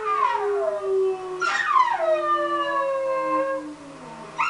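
Miniature collie howling in long howls that slide down in pitch. A new howl starts about a second and a half in and another right at the end. A man howls along on a lower, steadier note.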